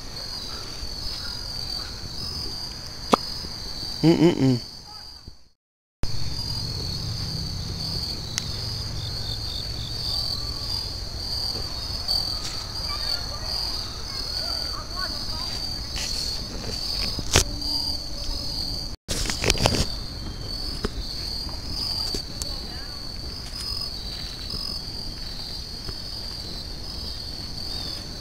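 A steady, shrill chorus of crickets or similar insects, with a few sharp pops from the burning fire. The sound cuts out briefly twice, once about five seconds in and again near the middle.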